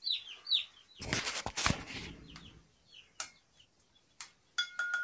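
Cobb 500 broiler chicks peeping in short falling chirps, with a loud rustling clatter about a second in and a few sharp clicks after it.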